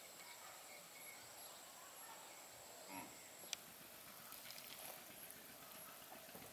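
Faint rural outdoor ambience: a steady high-pitched insect drone with short, repeated high chirps, and one sharp click about three and a half seconds in.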